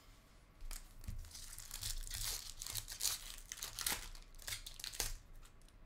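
Foil wrapper of a Bowman University Chrome trading card pack crinkling and tearing as it is worked open by hand, a dense run of sharp crackles starting about a second in.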